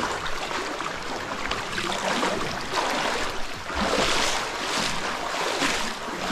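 Water washing and splashing against a boat's hull as it moves, in uneven surges, with wind buffeting the microphone.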